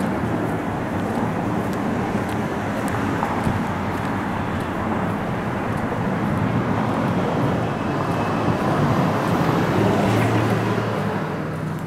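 Steady outdoor noise of road traffic and airport machinery along a terminal curb. It drops off near the end as the terminal doors are passed.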